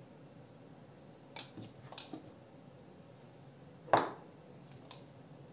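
A spoon clinking twice against a small glass spice jar, then the jar set down on the countertop with a knock about four seconds in, the loudest sound, followed by a light clink.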